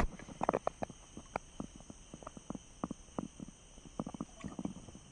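Light, irregular splashes and drips of water from a fishing net being pulled in by hand while wading in a shallow stream.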